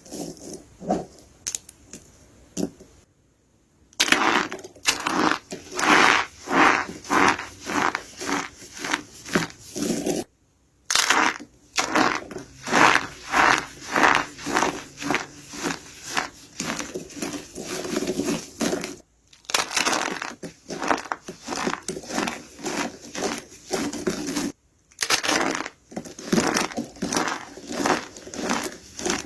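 Soap being crushed: a steady run of crisp crunches, about two a second, broken now and then by a brief silence.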